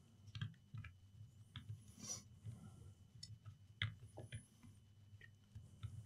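Faint, scattered plastic clicks and taps as a laptop battery pack is set and pressed into place in the open chassis.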